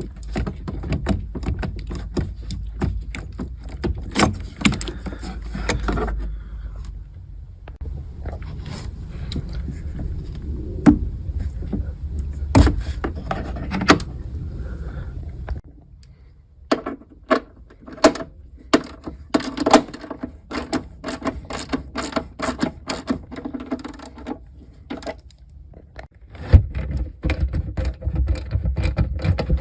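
Irregular clicks, knocks and scrapes of hand work on a car, with a low rumble through the first half that stops and returns near the end.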